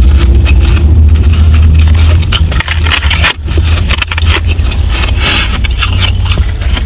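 Ice being chewed close to the microphone, a dense run of crisp, irregular crunches and crackles, with the scrape of ice in a plastic tub as more is picked out. A steady low rumble runs underneath.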